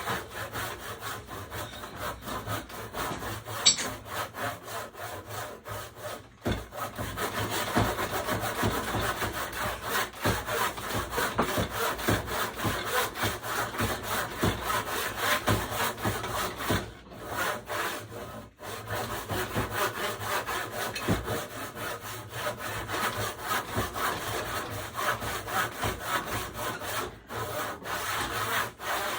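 Handsaw cutting through wood in a steady run of back-and-forth strokes, stopping briefly a few times. There is one sharp click about four seconds in.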